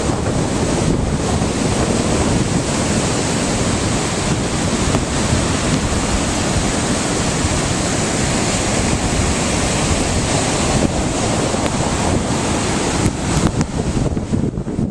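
Ocean surf washing in steadily, with wind buffeting the microphone; the noise turns gustier near the end.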